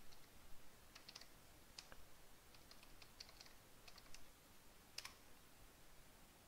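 Faint computer keyboard typing: scattered key clicks, then one sharper keystroke about five seconds in as the typed command is entered.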